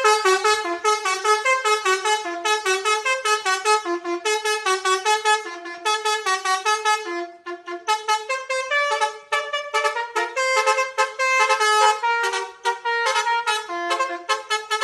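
Telolet bus horn tooting a fast, bouncy melody of short notes, about five a second, with a few brief breaks.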